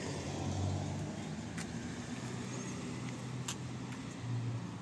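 Road traffic: a car engine running nearby, heard as a steady low rumble that swells about half a second in and again near the end, with a couple of faint clicks.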